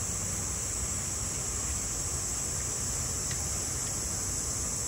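Steady high-pitched drone of summer cicadas over the continuous rush and splash of a waterfall and water stream falling into a pool.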